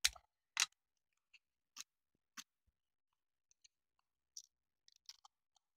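Faint handling sounds: a series of short, irregularly spaced clicks and rustles as a plastic N-gauge car body shell and a decal paper sheet are picked up and turned in the hands.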